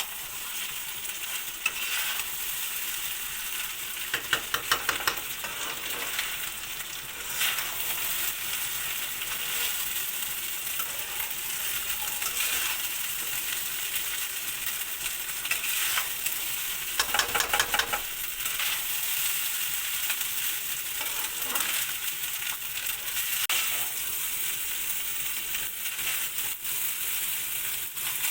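Food sizzling steadily in hot oil in a cooking pot for veg pulao, stirred with a spoon that scrapes against the pan in quick runs, about four seconds in and again near eighteen seconds.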